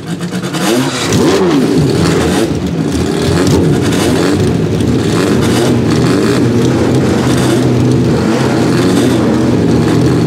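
BRM P180's 3.0-litre 60-degree V12 running at a standstill, blipped repeatedly so its pitch rises and falls in the first few seconds, then held at a fairly even, slightly wavering speed.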